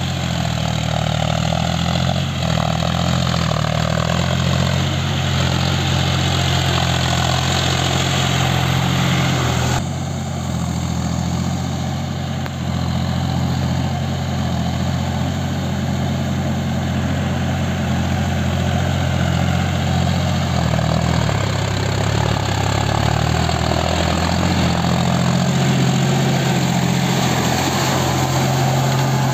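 John Deere tractor's diesel engine running steadily under load while it pulls a rotary tiller through flooded paddy mud. The sound shifts abruptly about ten seconds in.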